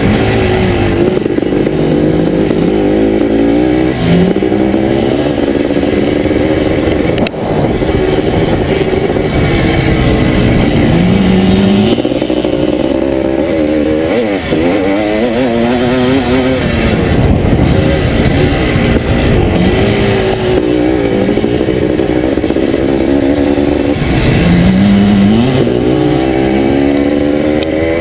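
1981 Can-Am MX-6B 400's two-stroke single-cylinder engine being ridden hard under load. Its pitch climbs repeatedly and drops back with each gear change or roll-off.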